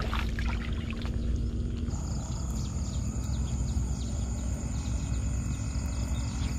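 Catfish flopping and rattling inside a wire-mesh fish trap as it is handled, over a steady low rumble. A thin, steady high whine sets in about two seconds in.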